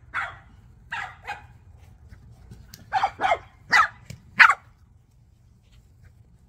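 Puppy barking: three short barks in the first second and a half, then four louder barks in quick succession about three seconds in, the last one the loudest.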